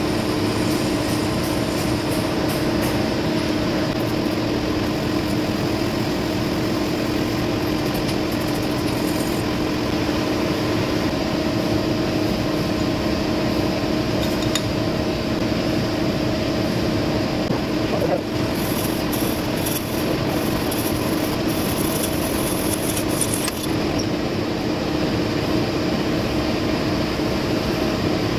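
Metal lathe running steadily: an even motor and gearbox hum with a few steady tones, with a short spell of faint higher-pitched hiss and clatter about two-thirds of the way in.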